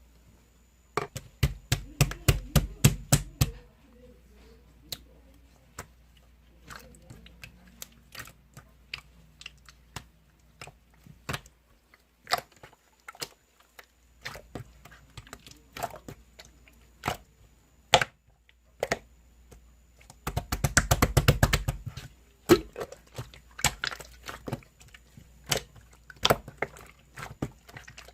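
Yellow slime being squeezed and kneaded by hand, giving scattered sharp clicks and pops, with two spells of rapid crackling pops, one near the start and one about two-thirds of the way through.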